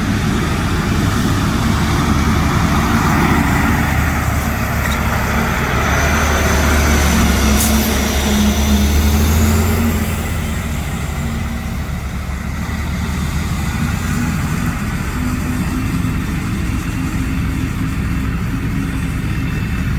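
Diesel engine of an AM General M927 water truck running, louder for a few seconds and then dropping back to a steady idle about ten seconds in.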